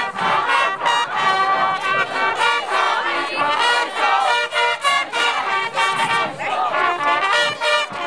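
Many festival trumpets (the bugle-like rappa of Hamamatsu festival groups) blare short overlapping calls over a marching crowd chanting and shouting.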